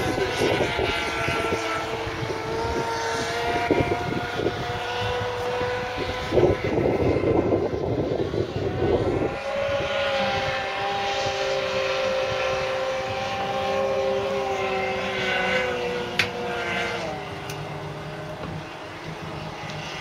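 Engines of a twin-drive 84-inch Apache radio-controlled offshore powerboat running at speed across the water, a steady high engine note that wavers slightly in pitch. A rushing noise swells between about 6 and 9 seconds in, and about 17 seconds in the note drops in pitch and gets quieter as the boat eases off.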